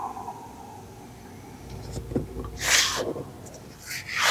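Sheets of paper rustling as they are handled and flipped, in two short bursts, the second near the end.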